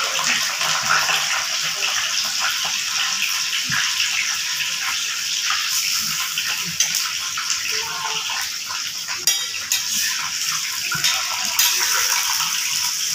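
Peeled bitter gourds deep-frying in hot oil in an iron kadai: a steady sizzle with fine crackling. In the second half a metal spatula clinks against the pan a few times as the gourds are turned.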